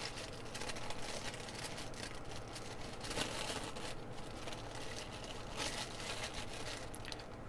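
Packaging wrapping being pulled and peeled away by hand: soft, irregular rustling and crinkling with small clicks.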